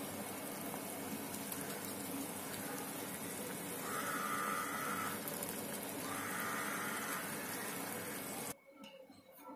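Soaked sago pearls boiling in water in a steel pot, a steady bubbling hiss, with a steel ladle stirring through them; the pearls are cooked through. The sound cuts off near the end.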